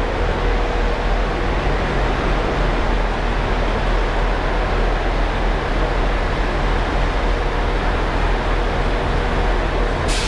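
Steady railway station ambience inside a large train shed: a continuous low rumble from trains standing at the platforms, with a faint steady hum.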